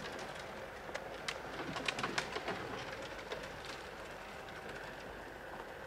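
Birds calling: a dove cooing and quick, sharp chirps, busiest about two seconds in, over a steady faint background.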